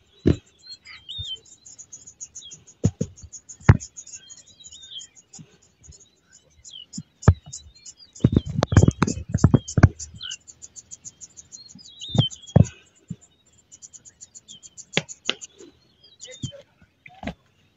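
Savanna ambience: insects trilling in rapid pulses and birds chirping, broken by scattered sharp knocks and a loud cluster of low thumps and rustling about eight to ten seconds in.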